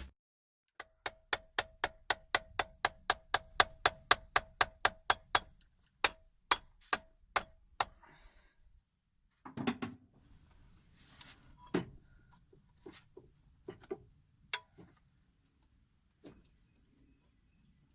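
Hammer blows driving a tool through the steel can of a stuck spin-on oil filter: a quick run of ringing metallic strikes, about four a second, then a short pause and a few more strikes. Scattered knocks and clanks follow in the second half.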